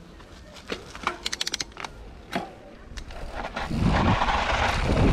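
Canyon Torque mountain bike clicking and knocking while rolling slowly, with a quick run of about eight evenly spaced ticks a little over a second in. From about four seconds in, loud wind rush on the helmet camera's microphone rises and stays as the bike gets moving.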